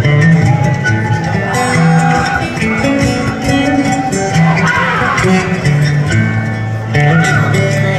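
Solo acoustic guitar played live, with chords and picked notes ringing out.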